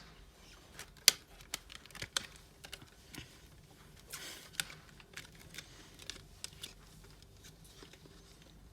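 Packaging being handled and opened: irregular, sharp clicks and light taps, the loudest about a second in, with a short rustle about four seconds in.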